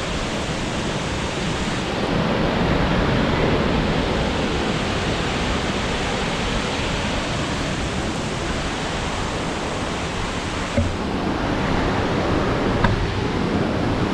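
Steady rushing of a large waterfall, a dense even wash of falling water carrying a lot of water. Two brief faint knocks sound near the end.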